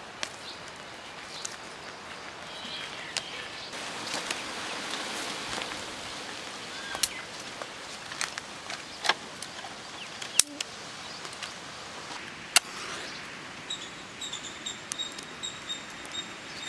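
Outdoor background with a few scattered sharp knocks, then a bird chirping in a rapid repeated run near the end.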